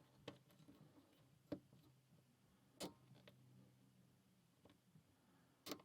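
Faint, sparse clicks of a lock pick and tension wrench working the pins inside a Paclock 90A Pro padlock, four or so separate ticks a second or more apart, as pins are being set one by one.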